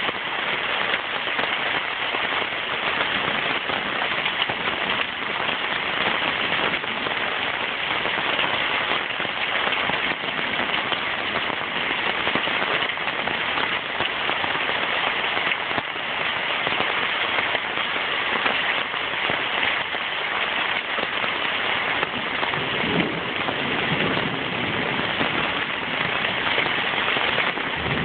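Heavy rain falling in a steady, dense hiss during a downpour.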